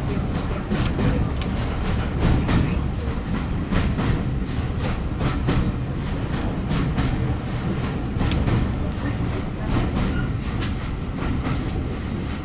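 Heritage railway passenger train running along the line: a steady low rumble with the wheels clicking irregularly over rail joints.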